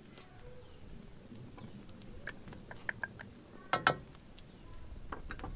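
Scattered small clicks and crackles, with a loud metallic clink a little before four seconds in: a spoon knocking against metal as desi ghee is spooned into an iron wok heating over a wood fire.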